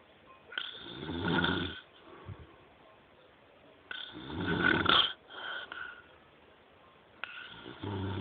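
Heavy snoring: three loud, rasping snores about three seconds apart, each lasting about a second, with softer breathing between them.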